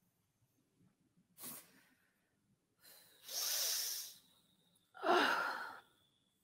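A person forcefully breathing out three times: a short puff about a second and a half in, then a longer, airy hiss, then a fuller, lower huff near the end, the loudest of the three.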